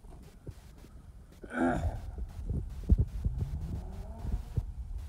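Irregular low thumps of footsteps and of the phone being handled while walking through grass, the loudest about three seconds in. A short squawk-like call comes about one and a half seconds in.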